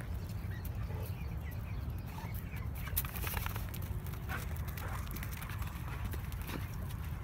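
A mastiff and another dog running and play-wrestling on bare dirt, their paws thudding and scuffing in quick irregular steps, with wind rumbling on the microphone.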